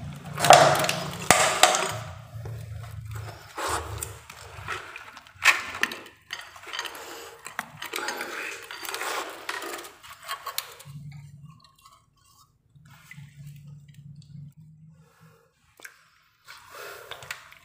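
Water splashing and sloshing in irregular bursts as a hand works in a muddy, water-filled hole around a buried PVC pipe joint; after about eleven seconds it goes much quieter, with only a few faint splashes.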